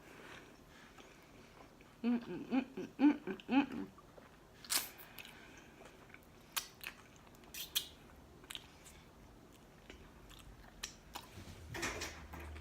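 Close-miked chewing of a taco, with sharp wet mouth clicks and smacks. A few short hummed notes come about two seconds in.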